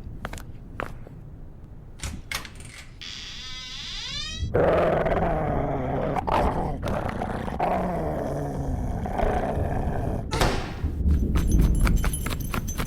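A sound-effects story. Footsteps approach, a door creaks slowly open, and a dog growls and barks for several seconds. About ten seconds in a door slams, followed by quick running footsteps.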